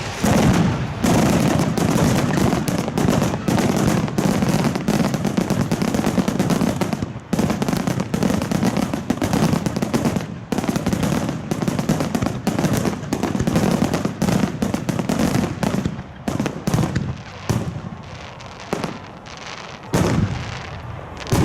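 Fireworks display: a dense, unbroken barrage of shell bursts and crackling, which thins out into separate bangs over the last few seconds.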